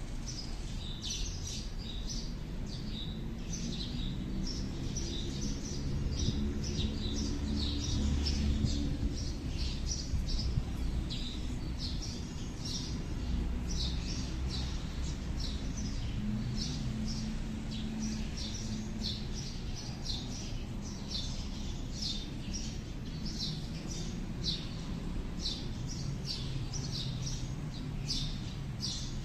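Small birds chirping over and over, many short high calls overlapping, over a steady low rumble.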